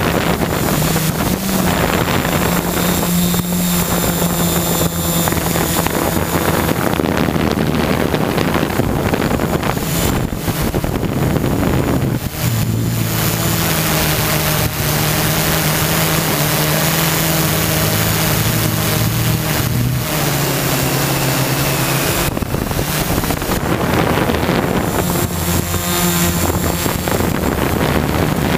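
JasGad M6 hexacopter's electric motors and propellers running steadily, picked up by its onboard camera along with wind on the microphone. The motor note changes about twelve seconds in and again about eight seconds later.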